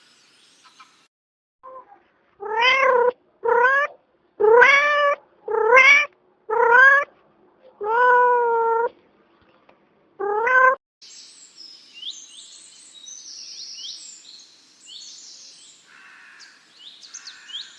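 Seven loud, pitched, meow-like animal calls, each rising then falling and lasting up to about a second. They are followed by fainter birds chirping rapidly in quick high sweeps.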